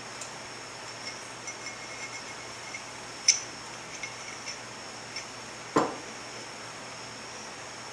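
Steel parts of an AX15 manual transmission's 3-4 synchronizer hub handled on a workbench: light metal clicks and clinks, a sharp clink about three seconds in and a heavier knock near six seconds.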